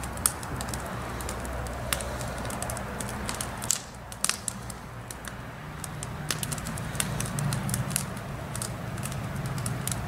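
Campfire in a fire ring crackling, with sharp irregular pops over a low steady hum.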